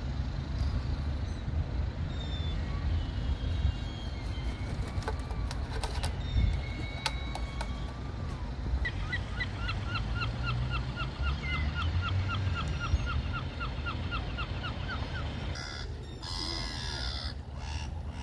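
A bird calls a fast run of short, repeated notes, about four a second, for several seconds through the middle, over a steady low outdoor rumble.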